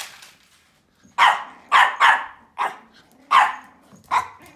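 Pomeranian barking: six short, sharp barks at uneven spacing, starting about a second in.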